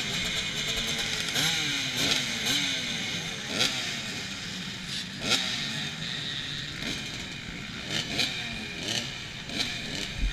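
Several off-road dirt bike engines idling and being blipped, their revs overlapping in quick rises and falls, with the sharpest revs about three and a half and five seconds in.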